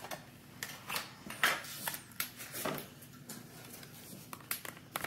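Paper and plastic packaging rustling and crinkling in short irregular bursts as a small model is unwrapped and its plastic tray handled out of a cardboard box.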